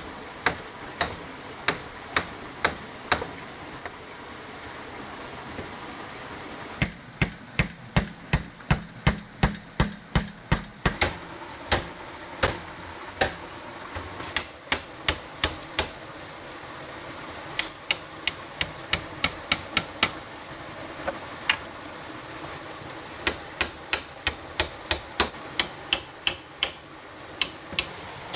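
Hammer blows on bamboo and wood, in runs of quick strikes about three a second. The blows are heavier and duller in a dense run near the middle. A stream rushes steadily underneath.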